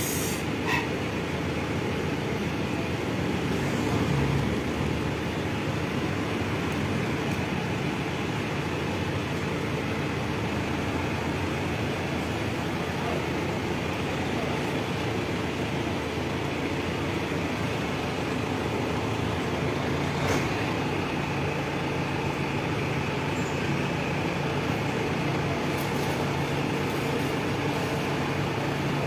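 Steady background din with a low, even hum and a few faint knocks, about a second in, at about four seconds and at about twenty seconds.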